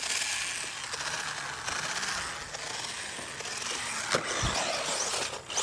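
Traxxas 1/16 Slash RC truck's electric motor and gears whirring and chattering as it drives, with a sharp knock about four seconds in.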